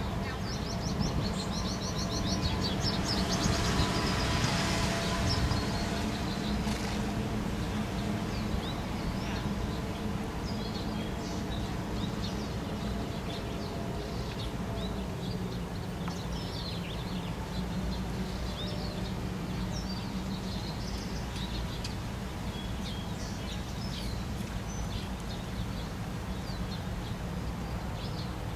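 Small birds chirping in short repeated calls over a steady low background rumble, with a louder rushing hiss swelling and fading a few seconds in.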